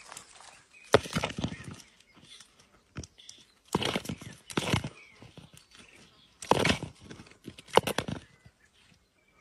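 Tortoise shells knocking and scraping against each other and the gravel in four bursts of clatter, as one tortoise shoves at another lying on its back.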